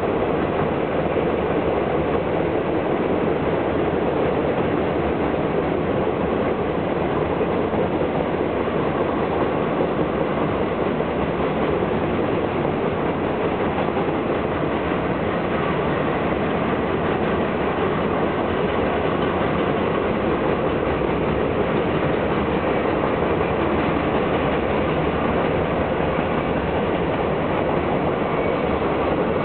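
Freight train cars rolling past at speed: a steady, unbroken rumble and rattle of steel wheels on the rails.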